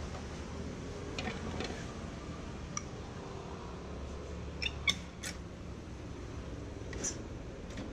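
Scattered plastic clicks and short squeaks from the copier's panels and latches as hands work them, over a steady low hum. The sharpest ones come in a quick cluster about five seconds in.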